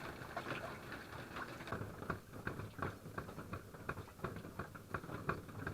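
Water dripping from the cave roof onto a tent, many irregular drops pattering several times a second.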